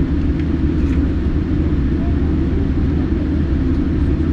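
Steady low rumble inside a Boeing 787-9 airliner's cabin on the ground just before takeoff: engine and air-system noise heard from the seats.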